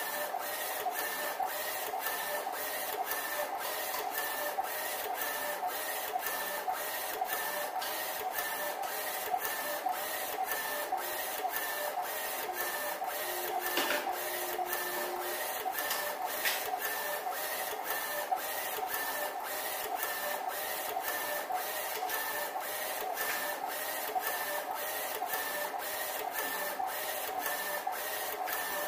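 BYC168 UV flatbed printer printing onto bottles held on its rotary cylinder attachment: the print carriage runs back and forth in an even rhythm of about two strokes a second over a steady mechanical whine.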